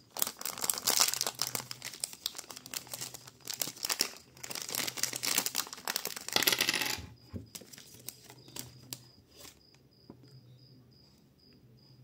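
Clear plastic packaging bag crinkling as it is handled and opened, dense and crackly for about seven seconds, then a few faint clicks as the small plastic USB adapter is taken out and handled.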